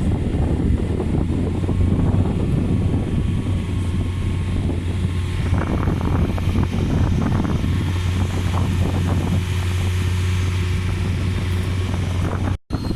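Typhoon wind buffeting the microphone, a loud steady low rumble with a constant low hum under it. The sound cuts out for a moment near the end.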